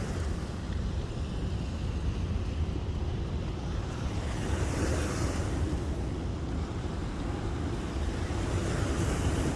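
Wind buffeting the microphone: a steady low rumble with a rising hiss around five seconds in and again near the end.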